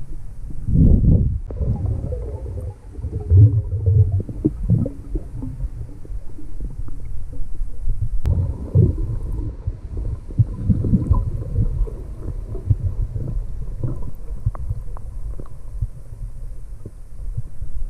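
Muffled underwater rumbling and gurgling heard through a camera's waterproof housing, swelling in surges every few seconds, typical of a scuba diver's exhaled bubbles.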